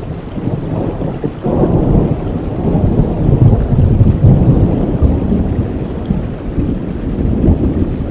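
Steady rain with a long roll of thunder that swells about a second and a half in, peaks, and slowly rumbles away.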